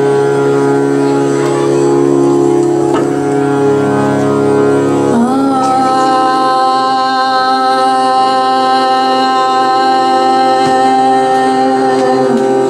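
Harmonium holding steady sustained notes while a woman sings the opening of a devotional abhang. About five seconds in, her voice slides up into one long held note.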